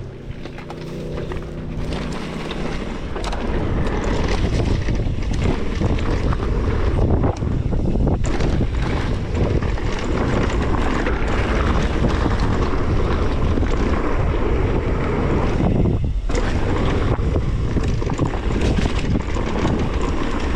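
Wind buffeting an action camera's microphone as a mountain bike rolls fast downhill, mixed with the rumble of the tyres on the dirt trail. The noise builds over the first few seconds as speed picks up and drops away briefly about three-quarters of the way through.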